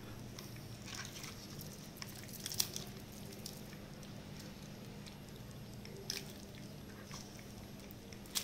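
Faint scattered clicks and taps as giant freshwater prawns are handled and set down on a tiled floor, their shells and long claws knocking on the tile, over a faint steady hum.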